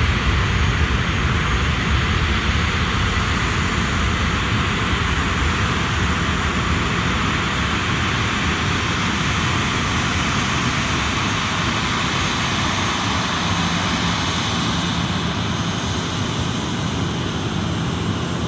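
Jet airliner engines at high power on takeoff, a steady loud roar and hiss that slowly fades, its deep rumble thinning out near the end.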